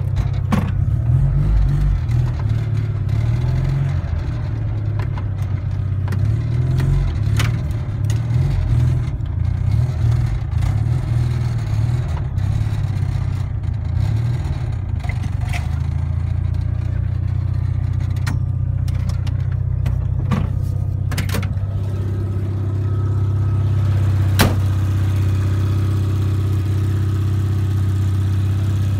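Honda TN-V kei truck's 360 cc two-cylinder engine running. Its note rises and falls through the first half as the truck is driven and shifted, then settles into a steady idle about three-quarters of the way through. A few sharp clicks come and go, the loudest shortly after the engine settles.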